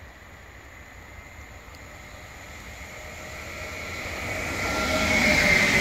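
An Sm5 (Stadler FLIRT) electric commuter train approaching, growing steadily louder. In the last two seconds a high whine from its electric drive comes in over the rumble of the wheels.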